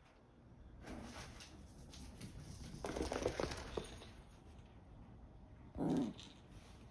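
Rustling and light pattering from a three-month-old Maltese puppy moving about, with a short, louder low sound near the end.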